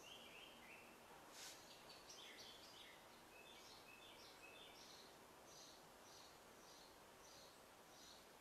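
Near silence: faint steady hiss with soft, high bird chirps repeating throughout, and a brief tick about a second and a half in.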